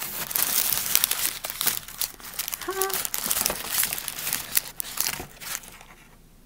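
Wrapped Raffaello candies and their packaging crinkling as they are poured out, a dense run of rustles and crackles that dies away about five and a half seconds in.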